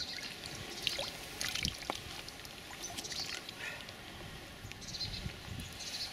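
Water trickling and dripping with small splashes as a brown trout is lifted from a landing net and held in shallow stream water for release.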